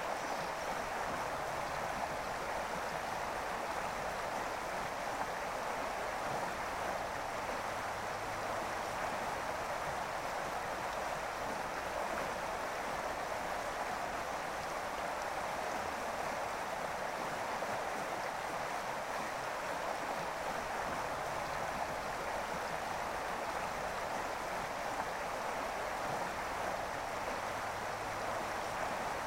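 Running water of a stream, a steady, even rushing that does not change.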